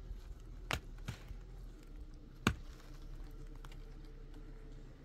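Scattered sharp clicks over a low steady hum; the loudest click comes about two and a half seconds in.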